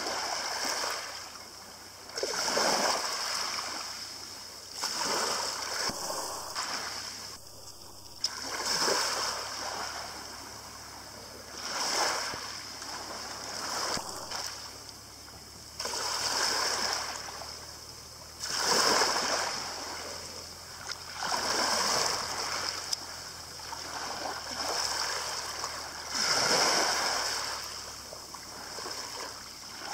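Small waves lapping on a shingle beach, each wash of water over the pebbles swelling and fading about every two to three seconds.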